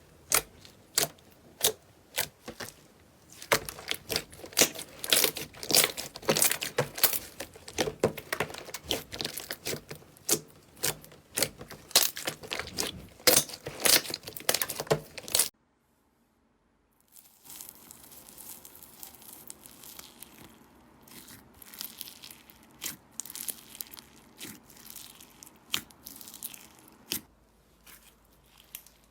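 Slime being pressed and worked by hand, making quick crackling pops and clicks, dense and loud at first. It breaks off about halfway through, then starts again softer and sparser.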